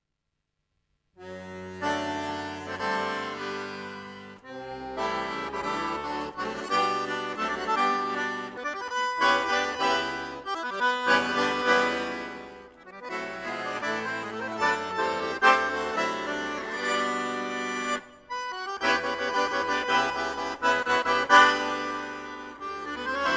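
Chromatic button accordion played solo, quick runs of notes over held chords and bass. It starts about a second in and goes in phrases with a few short breaks.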